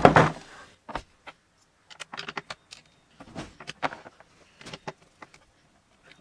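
A short clatter at the start, then irregular small clicks and light metallic taps of a tool and hardware being handled as the skateboard's truck bolts are started on.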